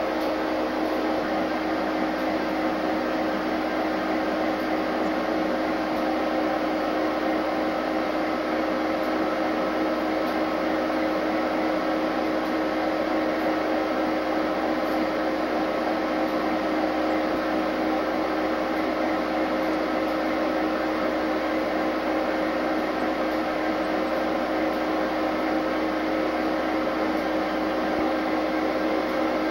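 Steady mechanical drone inside the cab of a Conrail SD60M diesel-electric locomotive, with a couple of steady hum tones over an even rushing noise: the locomotive idling.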